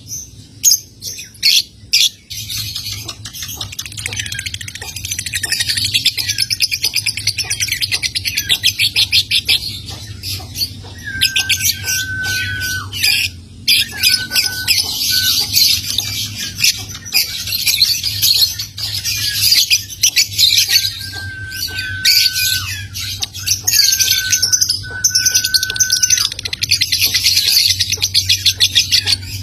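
Young lovebird singing a long, rapid, clicking 'ngetik' chatter that runs on as continuous 'ngekek' trilling, broken several times from about ten seconds in by short level whistled notes that dip at the end.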